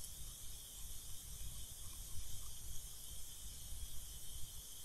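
Faint steady hiss with a low rumble underneath: background noise of the recording microphone.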